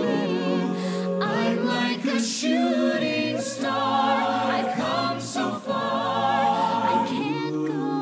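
Background music: a choir singing in harmony, largely a cappella, with wavering held notes.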